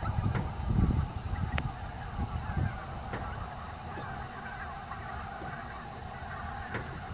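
A huge flock of snow geese honking, thousands of calls blending into a dense, steady chorus. A low rumble on the microphone in the first three seconds.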